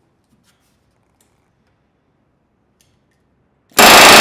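Pneumatic rivet gun, turned down to about 50 PSI, firing one short rapid burst near the end, hammering a tungsten bucking bar laid over an aircraft rivet to set it from the front. Before the burst only a few faint clicks.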